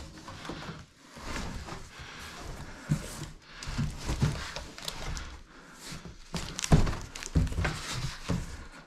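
Large empty cardboard shipping box being handled and shifted, with rustling and scraping cardboard and a series of dull thumps, the loudest about seven seconds in, plus footsteps.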